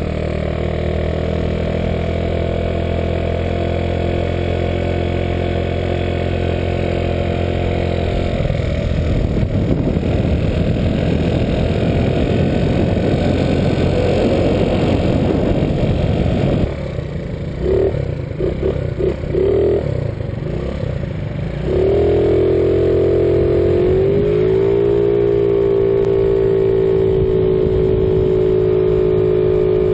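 Motor scooter engine running under way, steady at first, rougher in the middle, then rising in pitch as it speeds up and holding a higher steady pitch.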